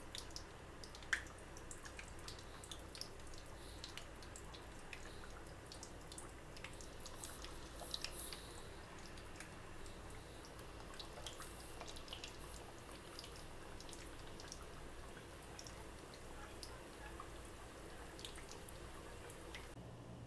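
Samosas deep-frying in oil on low-to-medium heat: a faint sizzle with scattered small pops and crackles, one louder pop about a second in.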